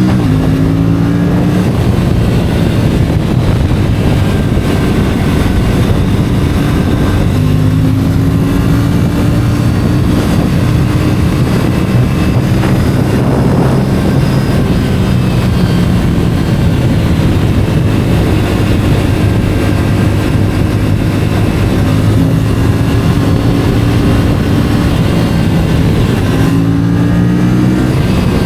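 Stock Aprilia RS 457's 457 cc parallel-twin engine running while riding, its pitch climbing slowly as it pulls through the gears several times and holding steady in between.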